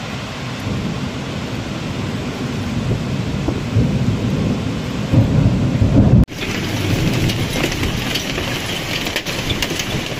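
Heavy thunderstorm: a low rolling rumble of thunder builds and swells over the first six seconds. After an abrupt break, a steady hiss of heavy rain follows, dotted with sharp ticks of drops striking.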